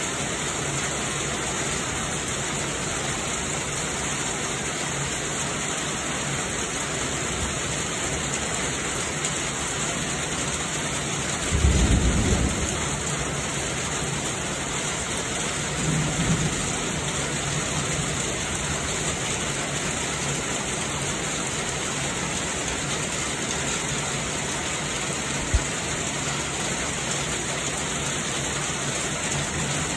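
Heavy rain falling steadily, with a low rumble of thunder about twelve seconds in and a weaker one a few seconds later. A single sharp click comes near the end.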